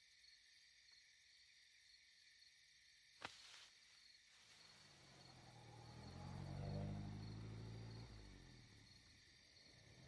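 Faint night ambience of crickets chirping steadily, with a sharp click about three seconds in. Midway, a car engine grows louder and fades away as it passes.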